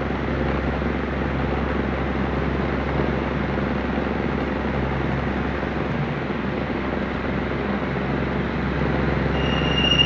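Loren Sid desk fan running at full speed: a steady rush of air from the blades over a constant low motor hum. The fan now runs strongly, its weak, slow motor fault fixed.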